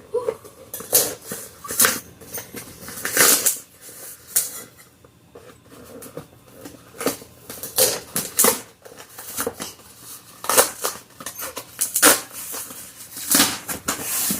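Cardboard shipping box being opened by hand: irregular tearing, scraping and rustling of cardboard, with scattered clicks and knocks.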